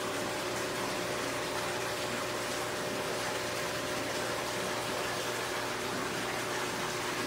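Aquarium water circulation and air bubbles: a steady rush of bubbling, running water, with a faint steady hum underneath.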